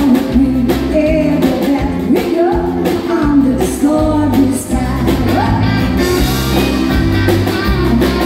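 Live country music: a woman singing into a microphone while strumming an acoustic guitar, over a steady bass line, through a PA.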